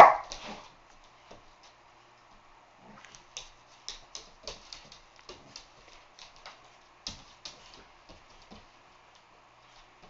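Dogs' claws clicking and scrabbling on a hardwood floor in scattered, faint bursts as two dogs tug on a rope toy.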